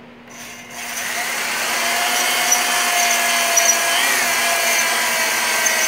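Electric drill spinning a spring-loaded stone cylinder hone inside a cast-iron cylinder bore of a Jeep 4.0L engine block, the stones grinding against the bore wall with a steady whine and hiss. It starts about a third of a second in and comes up to full speed over the next second.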